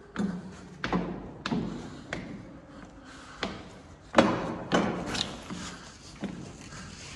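Footsteps climbing the wooden stair-ramp of the Great Pyramid's Grand Gallery: a string of thuds on the wooden steps, one or two a second, the loudest a little past halfway.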